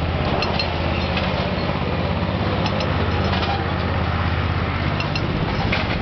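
Crimped wire mesh machine running: a steady motor drone with a fast mechanical pulse, and a few short metallic clicks from the wire scattered through it.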